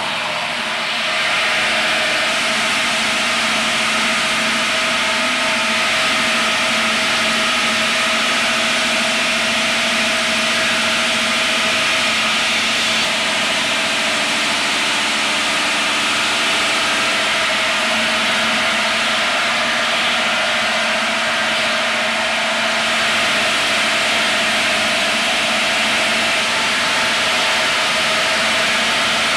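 DTJ 100 stone cutting machine's multi-blade saw cutting into a granite block under water spray: a loud, steady harsh grinding noise of the blades in the stone over a constant machine hum. It grows a little louder about a second in.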